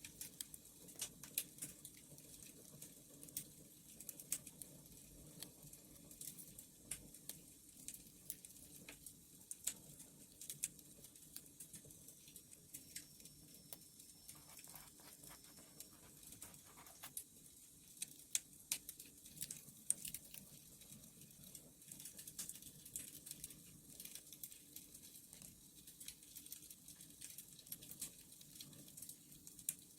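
Wood fire crackling: irregular sharp pops and snaps scattered throughout, some louder than others, over a faint steady low rumble.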